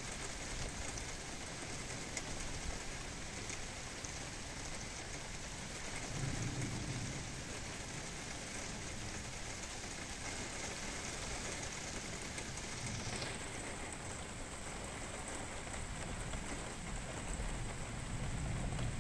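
Steady rain falling hard during a thunderstorm, an even hiss, with a brief low rumble about six seconds in.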